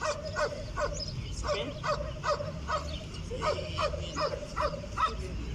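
A dog barking repeatedly, short barks coming about twice a second.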